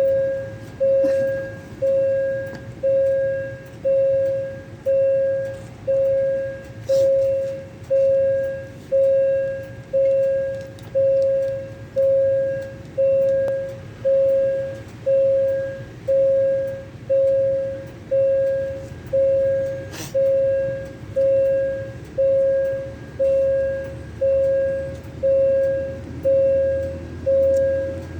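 Railway level-crossing warning bell ringing steadily, about one stroke a second, each ring fading before the next. This signals that a train is approaching. A low rumble grows near the end.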